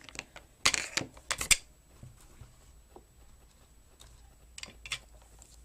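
Hands handling small plastic packaging and accessories from an iPod box: a quick cluster of sharp clicks and rustles about a second in, then a few fainter clicks near the end.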